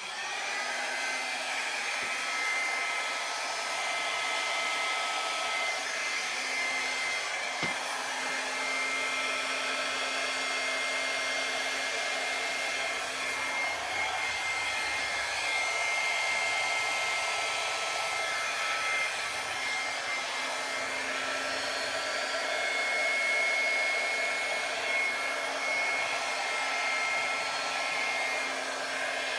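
Handheld blow dryer on its low setting, switched on and running steadily, with a faint whine over the rush of air, as it blows wet acrylic pour paint across a canvas.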